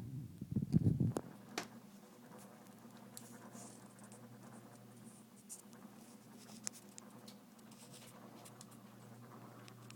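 Scratching and rustling with scattered light clicks over a steady low hum. A louder low rumble with a few sharp clicks comes about a second in.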